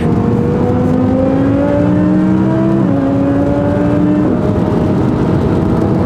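Supercharged Audi R8's engine heard from inside the cabin under acceleration, its note climbing steadily and dropping at an upshift about three seconds in before pulling up again.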